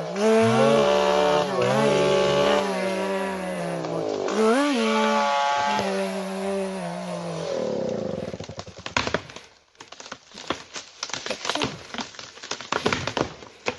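Chainsaw engine running and revving, its pitch rising sharply twice, then cutting out about halfway through. A stretch of irregular sharp cracks and snaps follows.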